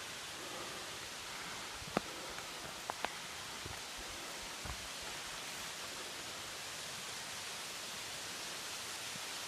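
Steady rushing of a waterfall cascade, an even roar of falling water with no pitch. A few short sharp clicks stand out about two and three seconds in.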